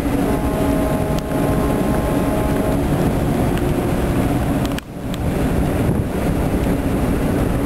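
Tugboat's diesel engine running steadily as the boat passes close by, a low hum under wind noise on the microphone. The sound drops out briefly about five seconds in.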